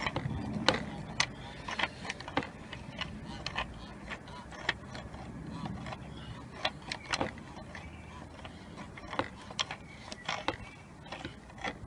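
Irregular clicks and light taps from the oil filter housing cap of a Lexus IS220D being screwed in by hand, over a low steady rumble.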